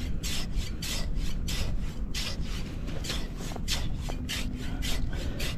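Small metal blade scraping through wet sand in quick repeated strokes, about three or four a second.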